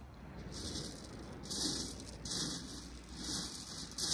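Footsteps crunching on shingle pebbles, about one step a second, growing a little louder as they come closer.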